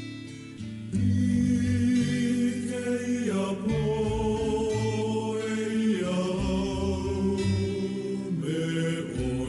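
Background music: a song with sung, chant-like vocals over sustained notes, swelling louder about a second in.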